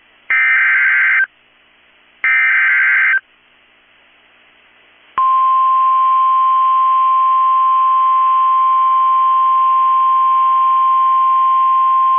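Emergency Alert System SAME header data bursts, a harsh digital screech sounded twice about two seconds apart, followed about five seconds in by the steady 1050 Hz NOAA Weather Radio warning alarm tone, which signals that a new warning is about to be read.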